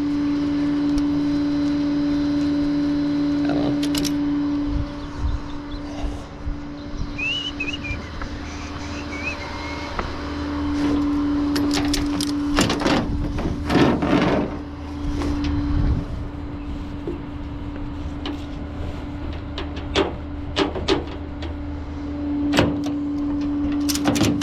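Vehicle running on the move: a steady drone with a constant hum tone, and scattered knocks and rattles.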